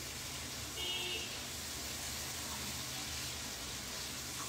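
Marinated paneer filling frying in oil and butter in a non-stick pan, a steady sizzle while a spatula stirs it. A brief faint tone sounds about a second in.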